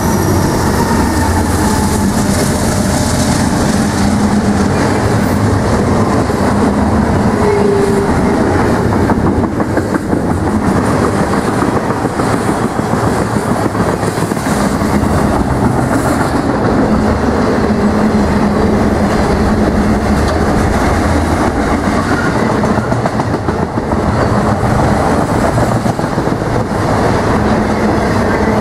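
A BNSF intermodal freight train rolls past close by at speed. Its trailing Dash-9 diesel locomotive goes by at the start, followed by a steady, loud run of flatcars carrying highway trailers, their wheels running over the rails.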